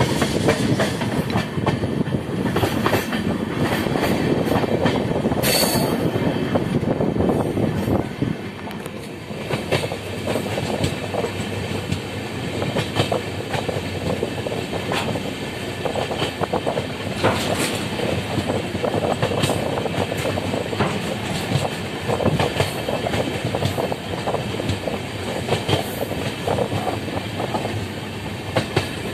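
Sabarmati Express passenger train running at speed, heard from an open coach window: a steady rumble of wheels on the rails with frequent irregular clicks and clatter from the track. It is louder for the first eight seconds or so, then drops to a somewhat quieter run.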